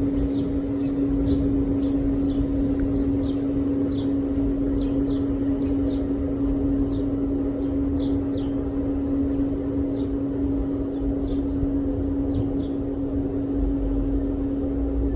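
Small birds chirping over and over in short, falling chirps, a couple a second, over a loud steady mechanical hum that is the loudest sound.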